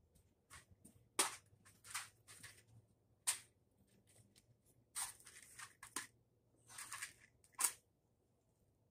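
Hands handling small objects at a workbench: a string of short rustles and sharp clicks, the sharpest about a second in, at about three seconds and near the end.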